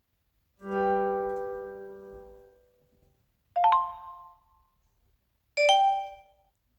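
Three different phone charging-connected notification chimes played one after another, about three seconds apart. The first is a longer piano-like tone that fades over about two seconds; the next two are short, bright chimes.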